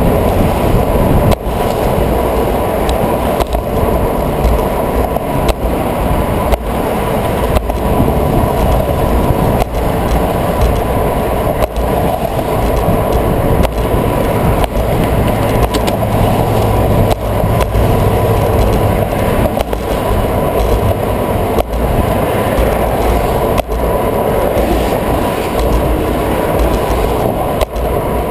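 Steady rumble of a bicycle rolling over the bridge sidewalk, picked up by a handlebar-mounted camera, with wind on the microphone and traffic passing on the roadway alongside. Frequent light knocks come through as the bike and camera jolt over the pavement.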